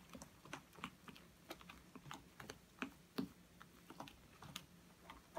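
Faint, irregular clicks and scrapes of a metal spoon against a plastic tub as a wet oat and seed mixture is stirred, a few clicks a second.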